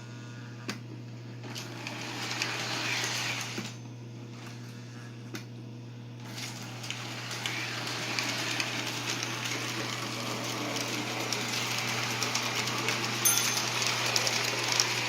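A 1949 Lionel 6220 Santa Fe O-gauge diesel switcher running on its track: the motor and wheels run briefly, go quiet for a couple of seconds, then run steadily from about six seconds in, over a steady low hum. Its built-in mechanical bell dings now and then as it goes around.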